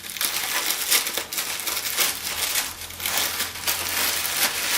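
Packaging crinkling and rustling in irregular bursts as a parcel is handled and opened by hand.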